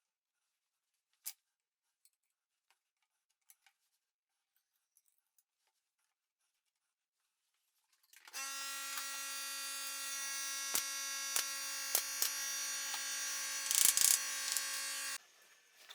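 A power tool's electric motor runs at a steady pitch for about seven seconds, starting about eight seconds in, with a few sharp clicks and a brief louder rasp near the end before it cuts off suddenly. Faint scattered clicks precede it.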